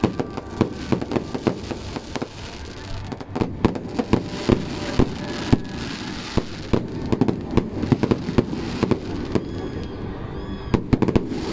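Fireworks display: a rapid, uneven barrage of sharp bangs and crackles, several a second, with some louder reports standing out.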